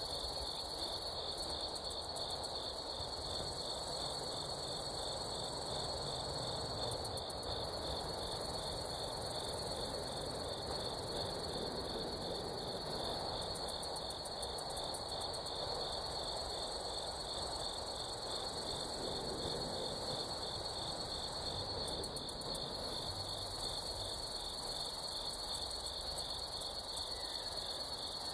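Steady insect chorus: a continuous, high-pitched pulsing trill, with short buzzy bursts higher up now and then, over a faint low background rumble.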